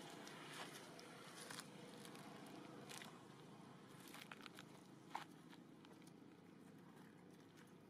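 Near silence with faint, scattered crackles and clicks, the sharpest about three seconds and about five seconds in.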